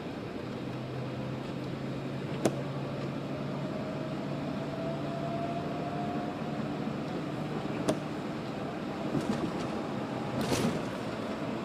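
Steady vehicle rumble and road hiss heard from inside a car in the rain, with two sharp taps. Near the end a passing car's tyres hiss on the wet road.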